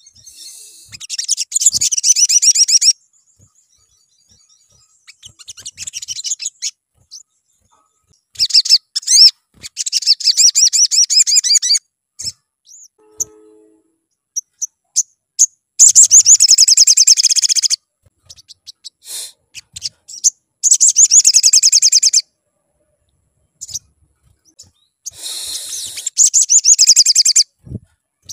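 Olive-backed sunbird (sogok ontong) singing: a run of fast, high twittering trills, about seven bursts of one to three seconds each, with short pauses between.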